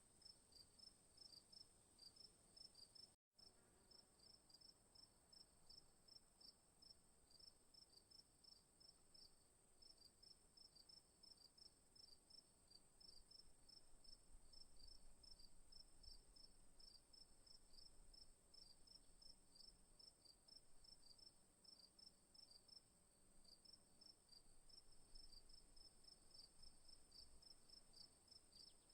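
Night insects: crickets chirping in quick, evenly repeated pulses over a steady high-pitched insect trill, all faint. The sound cuts out for an instant about three seconds in.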